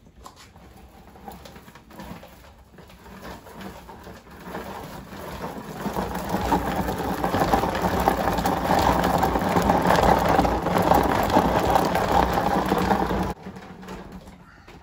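Mueller food chopper running, its blades chopping a mix of meat, vegetables and spices. It builds up from about four seconds in, runs steadily with a low hum, and cuts off suddenly near the end.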